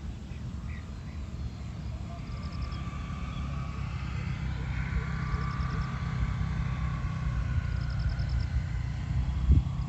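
A distant engine drones, slowly growing louder through the middle, over a steady low rumble. A short, rapid, high chirping trill repeats every two to three seconds.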